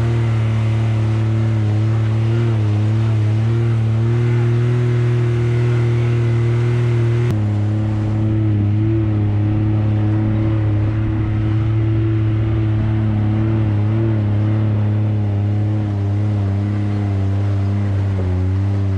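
Side-by-side UTV engine running steadily under way on a dirt trail, its pitch wavering a little with the throttle. The tone changes abruptly about seven seconds in.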